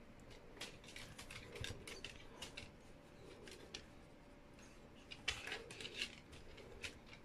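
Irregular light clicks and taps of dogs' claws on a hardwood floor as the dogs shift and step, with a denser cluster a little over five seconds in.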